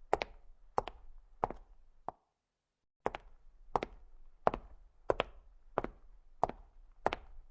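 Footsteps on a hard floor: single footfalls at an even walking pace of about three every two seconds, each a sharp knock. The steps break off into dead silence for about a second, a little over two seconds in, then resume at the same pace.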